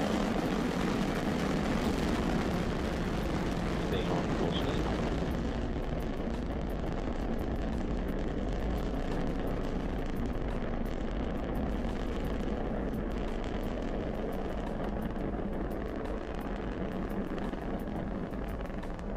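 A Falcon 9's nine first-stage Merlin engines during ascent make a deep, steady noise with crackling, slowly fading as the rocket climbs away.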